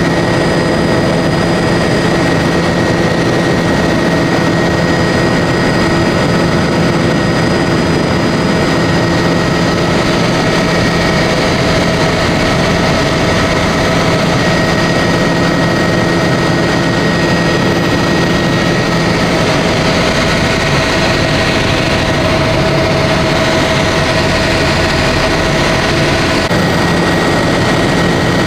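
Tour helicopter's turbine engine and rotor running in steady cruise flight, heard from inside the cabin as a loud, even rush with steady whining tones over it.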